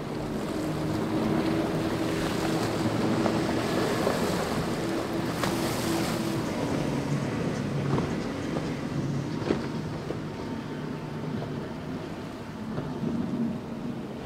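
Powerboat engines running at speed as boats pass, a drone that shifts in pitch. Under it is the hiss of spray and churned water from the hulls, with a few brief sharp knocks.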